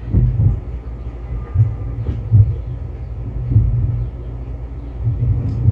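A steady low rumble with a few soft thumps, the strongest about two and a half seconds in.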